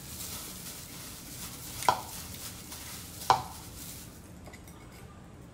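Tuna mayonnaise being mixed by a gloved hand in a bowl: a soft, busy handling noise with fine ticks, and two sharp knocks about two and three and a half seconds in. The noise eases off after about four seconds.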